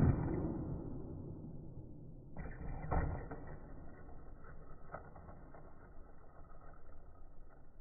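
RC monster truck tumbling on asphalt, its clatter fading over the first two seconds, then a thump about three seconds in as it comes down on its wheels, followed by faint mechanical clicking and rattling.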